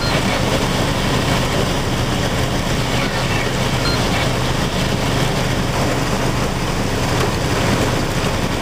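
Small pea- to marble-sized hail and heavy rain hitting a vehicle, heard from inside it as a loud, steady, unbroken noise.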